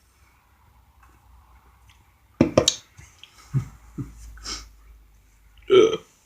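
Close-miked eating sounds: a few sharp mouth clicks and bites about two and a half seconds in, softer chewing after, then a short vocal sound near the end.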